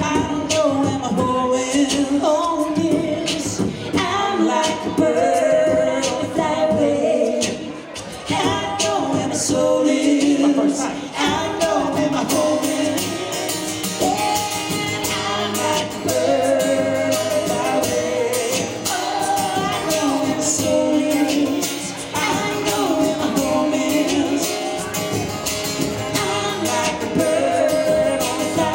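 Live singing of a song, with long held notes that rise and fall in pitch.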